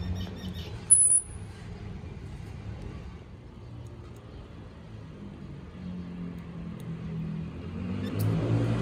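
Steady low rumble of road traffic that swells near the end, with one short, loud, high-pitched squeak about a second in.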